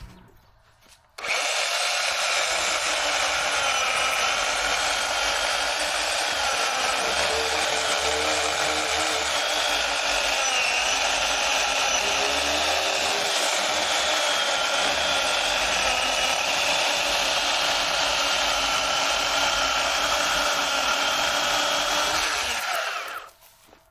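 Worx electric chainsaw starting about a second in and running at a steady high whine while cutting through maple, its pitch dipping only slightly under load without bogging down. It stops shortly before the end.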